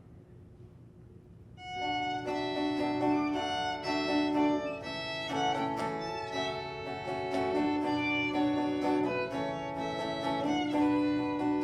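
Fiddle and acoustic guitar start an instrumental introduction to a folk tune about two seconds in, the fiddle carrying long held notes over picked guitar.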